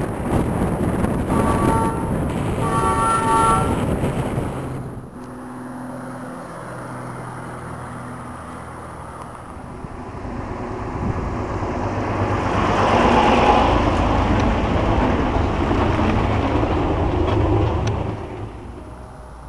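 A truck horn sounded twice, two short blasts of several notes at once, over road noise. Then an Opel Blitz truck's engine and tyres come nearer, pass close and loud, and fade away.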